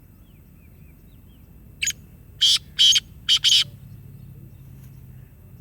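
Pet parrot calling: one short call, then three loud harsh screeches in quick succession.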